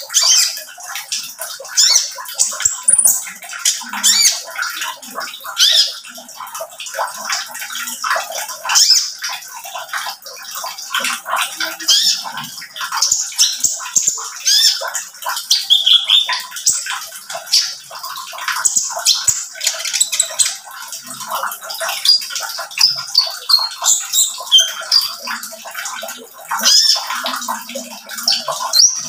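Male Van Hasselt's sunbird (kolibri ninja) singing in a cage: a fast, unbroken stream of high, sharp chirps and twitters.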